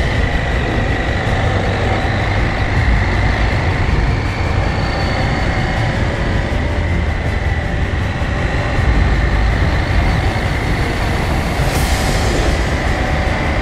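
KTM 790 Adventure R motorcycle's parallel-twin engine running at a steady pace while riding a gravel track, mixed with a constant rush of wind and tyre noise.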